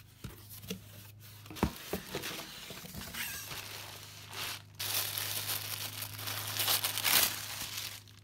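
Tissue paper wrapping crinkling and rustling as a bundle of jewelry is lifted out of a cardboard box and unwrapped, with a few light knocks about two seconds in and the loudest crinkling from about five to seven seconds in. A low steady hum lies underneath.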